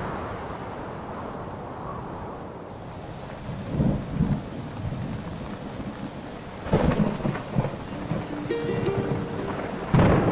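Thunderstorm: steady rain hiss with low thunder rumbles about four and seven seconds in, and a loud thunderclap at the very end.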